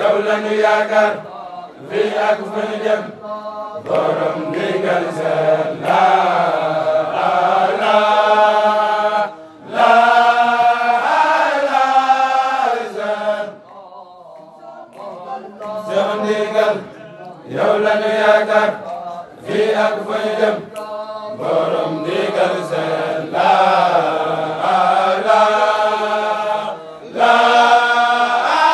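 Group of young men chanting a Mouride Baye Fall zikr in unison: long sung phrases with short breaks between them, and a brief quieter lull about halfway through.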